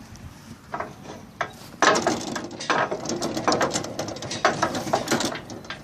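Metal trailer tongue and hitch being worked by hand: irregular metallic clanking and rattling that starts about a second in and grows dense, with ratchet-like clicks.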